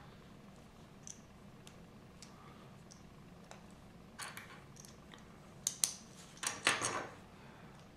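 Plastic Lego pieces handled and pressed together on a wooden table: scattered light clicks, then a cluster of sharper clicks and snaps about six to seven seconds in as parts are fitted together, over a faint low hum.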